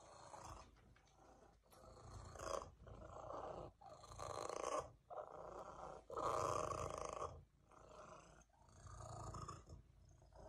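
Domestic cat purring loudly, in swells of about a second each with short breaks between.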